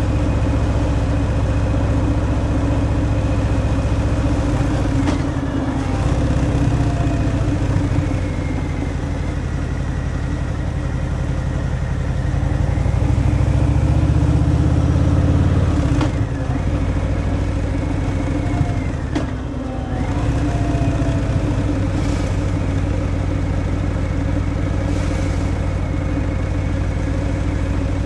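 Harley-Davidson Fat Boy V-twin running through its stock exhaust while riding, a steady low rumble. It grows louder under throttle about twelve seconds in, then drops off briefly around sixteen and nineteen seconds as the throttle eases.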